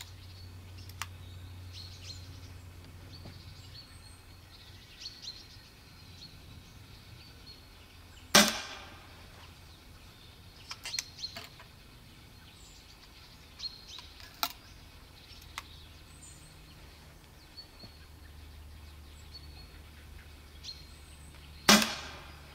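Two shots from a low-powered air rifle firing blowgun darts, each a sharp crack with a brief ring after it, about 13 seconds apart. In between come a few light clicks as the next dart is loaded.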